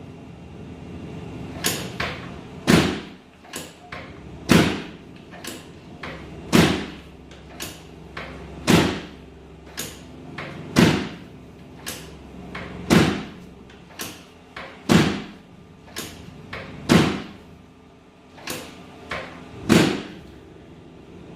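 Chiropractic drop table: the raised pelvic section is pressed down and drops with a loud clack, about every two seconds, around ten times. Some drops have a softer click just before.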